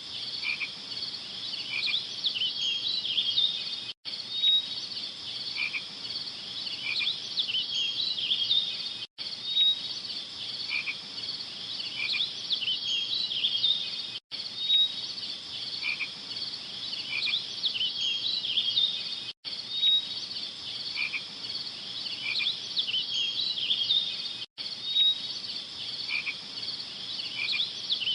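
A dense chorus of small calling animals, high rapid chirps and trills, as at a night-time pond. It breaks off in a short dropout about every five seconds where a short recording loops.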